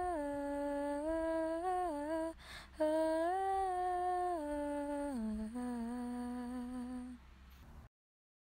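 A voice humming a slow, wordless melody of long held notes that step and slide between pitches, with a short break after about two seconds, stopping about seven seconds in.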